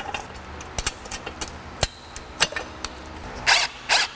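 Hand-tool work on engine hardware: scattered light metal clicks and knocks, then two short bursts of ratchet-wrench clicking about three and a half and four seconds in as a fastener is run down.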